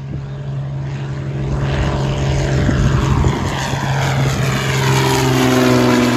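CompAir 6.2's turbocharged Lycoming TIO-540 piston engine and propeller as the plane makes a low pass overhead: a steady drone that grows louder as it approaches, its pitch dropping near the end as it goes by.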